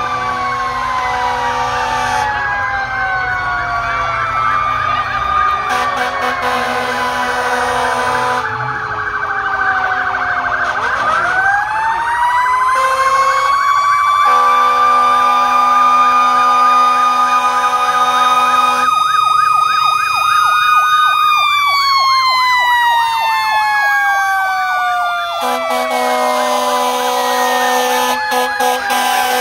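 Several fire engine sirens sounding at once as the trucks pass. One winds up about eleven seconds in, holds a steady wail, then slowly winds down. Others warble rapidly in between, with long steady horn blasts that start and stop abruptly.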